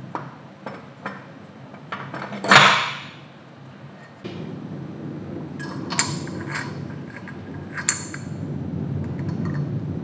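Steel and brass grinding-burr parts of an electric coffee grinder clinking against the metal housing as they are fitted by hand. The loudest is a single ringing clank about two and a half seconds in, and a few sharper clicks follow near the middle and later on.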